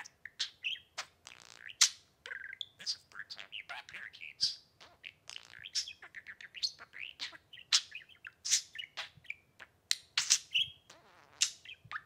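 Budgerigar chattering and warbling: a rapid, unbroken run of short chirps, whistles and clicks.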